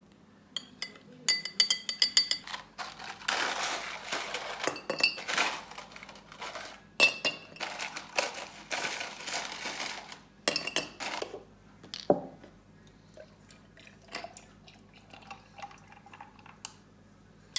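Dishes and glassware clinking in a kitchen: several sharp, ringing clinks in the first couple of seconds, then stretches of running or pouring liquid broken by knocks of crockery, fading to scattered small clinks near the end.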